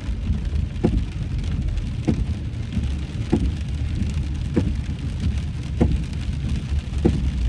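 Rain and road noise inside a moving car, with the windshield wipers sweeping steadily about once every second and a quarter.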